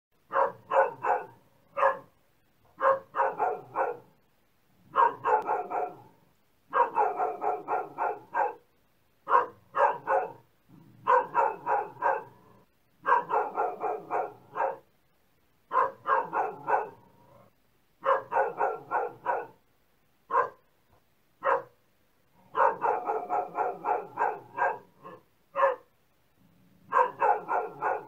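A dog barking in quick runs of several barks at a time, with short pauses between the runs.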